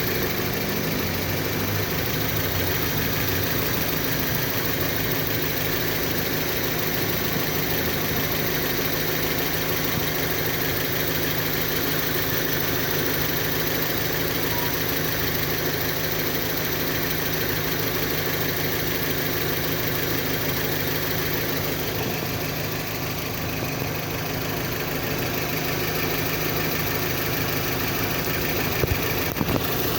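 Kia Sportage engine idling steadily with an even hum, a couple of faint knocks near the end.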